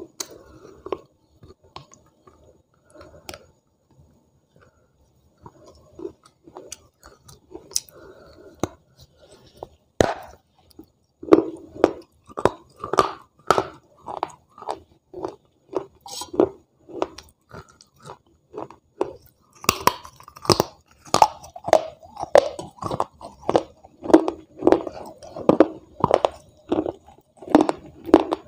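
Close-up biting and chewing of a hard, brittle slab: scattered small crunches at first, a sharp bite-crack about ten seconds in, then steady loud crunching at about two chews a second.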